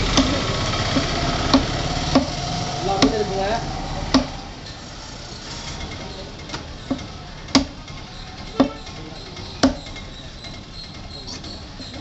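Sharp knocks of a fish-cutting knife striking a wooden log chopping block as fish is cut on it, about ten in all at irregular intervals. A steady background hum is louder for the first four seconds, then drops away.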